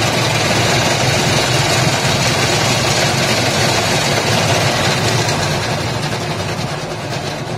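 Hand-cranked cotton candy machine spinning at speed: a loud, steady mechanical whirring and rattling from its crank gearing and spinner head while it throws out sugar floss.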